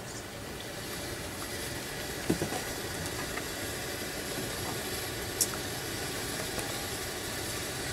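Steady low rumble, with a soft knock about two seconds in and a small click about halfway through.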